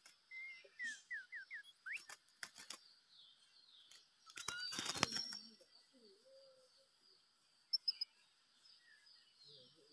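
Caged white-rumped shama giving a quick run of short, sliding chirps, followed by a few clicks. About four and a half seconds in there is a loud rustle like wings flapping, then a few high notes near the end. A steady high insect hum runs underneath.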